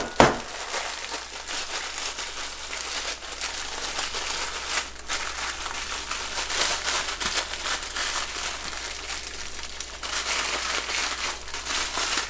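The wrapper of a sleeve of Ritz crackers crinkling steadily as it is twisted and worked open by hand, the crackers inside already crushed.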